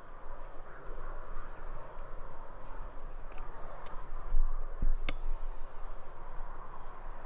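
Outdoor ambience with distant birds calling over a steady hiss, and two sharp clicks about four and five seconds in.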